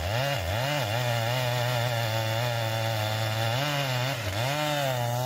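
Chainsaw engine running at high revs while sawing wood. Its pitch dips briefly and recovers a few times, near the start and again around four seconds in.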